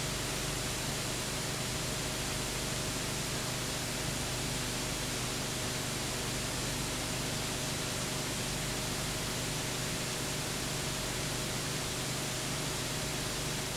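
Steady hiss with a low hum and a faint thin whine underneath, unchanging throughout: the blank soundtrack of a transfer of silent home-movie film.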